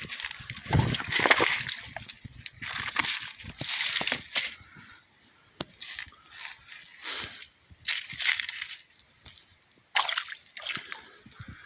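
Creek water sloshing and splashing in short irregular bursts, with a heavy low thud about a second in.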